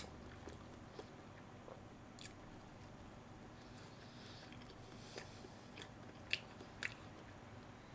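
Faint chewing of a chicken burger, with a few short clicks and mouth smacks scattered through.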